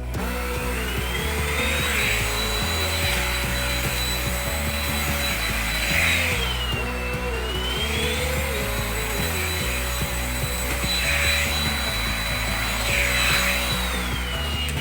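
Iris Ohyama corded canister-stick vacuum cleaner running with a high motor whine that drops in pitch and recovers about six seconds in and again near the end.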